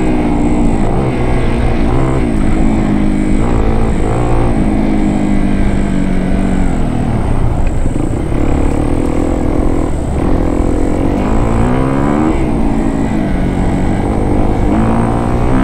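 Motorcycle engine heard from the rider's seat, its pitch rising and falling again and again as the throttle opens and closes, over a steady low rumble.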